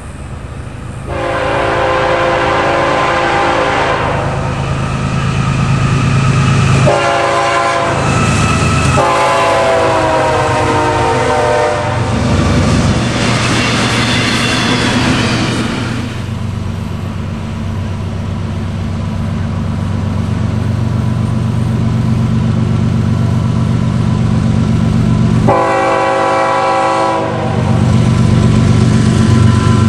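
Diesel freight locomotive's air horn sounding several long blasts, the first about a second in and a shorter one near the end, over the steady low drone of the locomotive's diesel engine.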